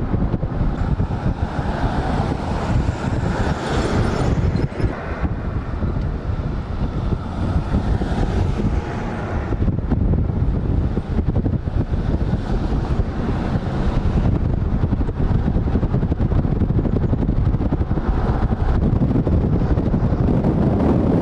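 Steady engine rumble with wind buffeting the microphone.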